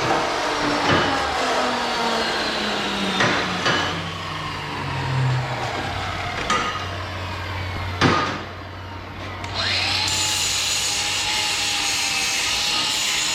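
Power saw cutting a length of steel stock, its motor pitch slowly dropping as the blade works through the metal, with several sharp metallic knocks. A loud clank about 8 s in, a brief quieter spell, then a motor runs up again and holds a steady whine.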